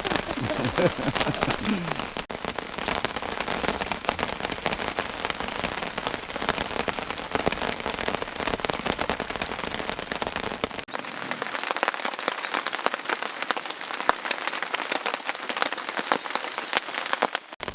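Heavy rain falling, with many close individual drops striking.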